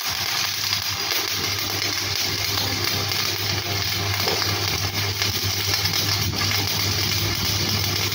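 Stick (shielded metal arc) welding: the arc of a coated electrode burning on a steel plate, crackling and hissing steadily, with a steady low hum underneath.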